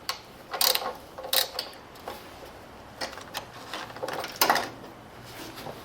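A socket ratchet clicking in short bursts, several times, as the carburetor's 10 mm mounting bolts are worked loose.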